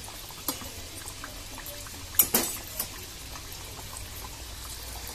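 Thekua deep-frying in hot ghee in a steel kadhai over a low flame: a steady bubbling sizzle, with a few sharp clicks, the loudest about two seconds in.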